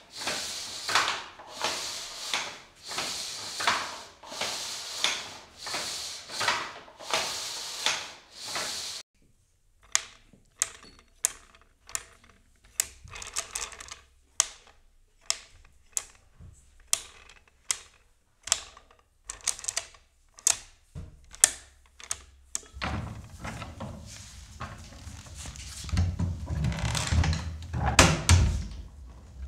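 A wooden hand loom working: swelling swishes and knocks of the shuttle and beater, about one stroke a second, for the first nine seconds or so. Then the wooden beads of an abacus click sharply and unevenly against one another. From about 23 seconds in, an old wooden chest creaks and knocks over a low rumble.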